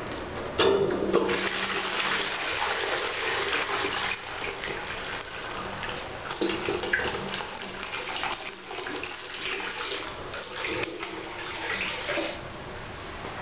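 Toilet flushing: water starts rushing in suddenly about half a second in, then jets into the bowl and swirls down the drain, with a low steady hum beneath it. The rush eases off shortly before the end.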